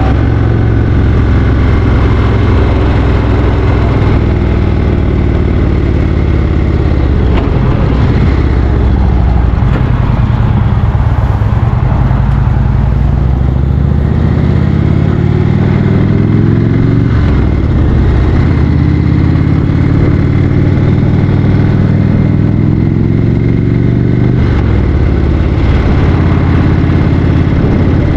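2015 Indian Roadmaster's Thunder Stroke 111 air-cooled V-twin running on the move. Its pitch climbs steadily through the second half and drops suddenly twice, about two-thirds of the way in and again near the end.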